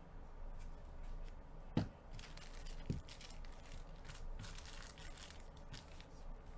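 Foil trading-card pack wrappers crinkling and tearing as they are handled, with two thumps about two and three seconds in.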